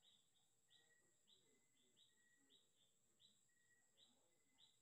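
Near silence: faint room tone with a faint, high chirp repeating about twice a second in the background.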